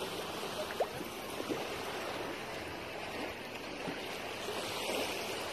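Shallow water lapping and sloshing steadily around a swimming miniature dachshund, with a couple of light splashes about a second in.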